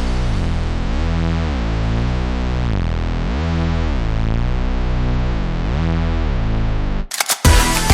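Electronic background music with a synthesizer sweeping in a slow repeating pattern; about seven seconds in it breaks off briefly and a busier passage with sharp beats begins.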